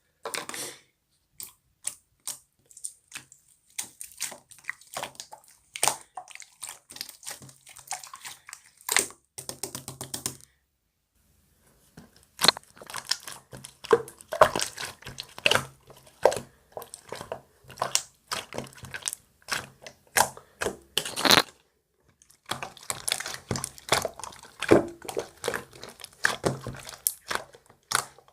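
Slime being squeezed and poked by hand: a quick run of sticky clicks, pops and small squelches, broken twice by short silences.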